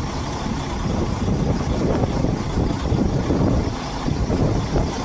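Truck engine running steadily with a low rumble.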